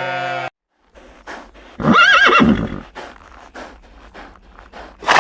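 A horse neighs once about two seconds in, a quavering whinny that wavers up and down, among irregular hoof clops. The tail of a previous animal call is cut off half a second in, and a sudden loud noisy burst comes near the end.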